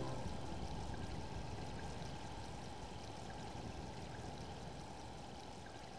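Rain sound effect: an even hiss of falling rain with faint scattered drips, slowly fading and then cutting off suddenly near the end.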